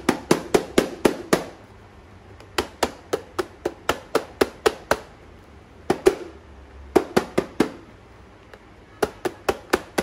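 A hand tapping the plastic base of a BYINTEK K45 projector held upside down, in quick runs of sharp knocks, about five a second, broken by short pauses. The knocking is meant to shake dust off the projector's internal screen without opening the case.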